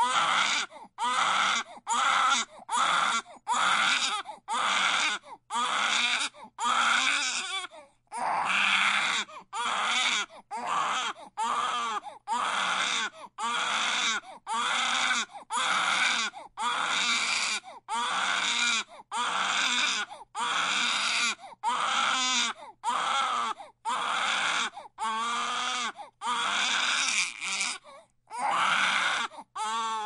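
Baby crying hard: a steady run of short wails, about one a second, each rising and falling in pitch, with brief breaks between them.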